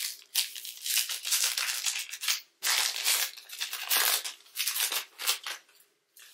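Plastic wrapper of a Panini Mosaic basketball card pack crinkling in gloved hands as it is opened, a run of rustling bursts that stops near the end.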